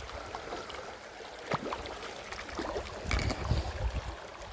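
Flowing water of a waterfall stream as a steady hiss, with a few clicks and low thumps about a second and a half in and again between three and four seconds in.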